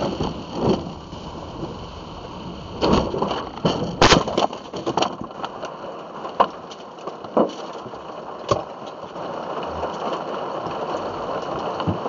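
A car crashing off the road into trees and brush, heard through a dashcam: a steady rushing noise under a cluster of sharp knocks and cracks about three to five seconds in, loudest near four seconds, then single knocks every second or so.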